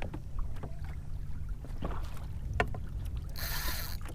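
Wind rumbling on the microphone, with water and small knocks around a kayak: a few light clicks, and a short hissing rush near the end.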